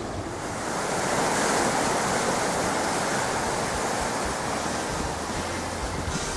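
Creek in flood after heavy rain, its muddy floodwater rushing and churning over its banks in a steady roar of water noise that swells about a second in.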